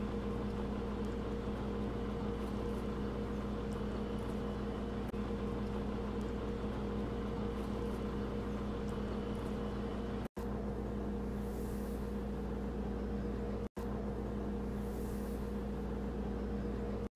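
A steady machine hum with a constant tone, cut off for an instant twice past the middle.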